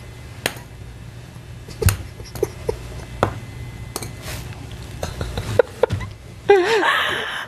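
Two people laughing: scattered sharp clicks and taps over a low steady hum, then a louder laugh near the end.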